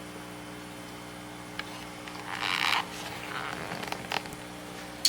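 A steady low electrical hum, with a brief rustle about two and a half seconds in and a few faint clicks.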